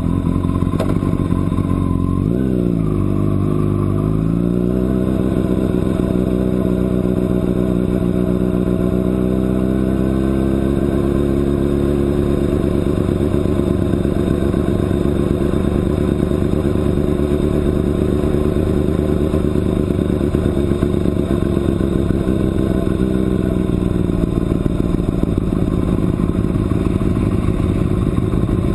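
Onboard sound of a sport motorcycle's engine at low speed. The note dips and climbs again two to four seconds in, holds steady while riding slowly, then eases down near the end as the bike slows into line.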